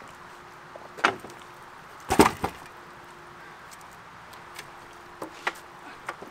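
An old, mud-covered Gazelle bicycle knocking against a wooden bridge railing and clattering down onto the wooden plank deck. There is a knock about a second in, the loudest clatter just after two seconds, and a few lighter knocks as it is handled near the end.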